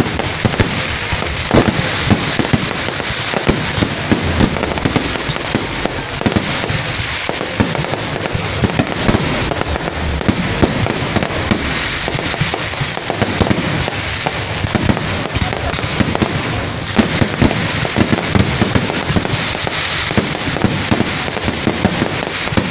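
Aerial fireworks bursting overhead in rapid succession: a dense, unbroken crackle of bursting stars, cut through by many sharp pops and bangs.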